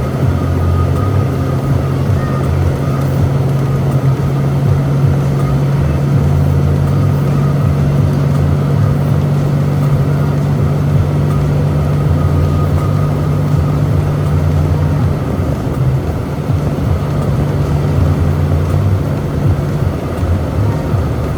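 Semi-truck running at road speed, heard inside the cab: a steady low engine hum with road noise, level throughout.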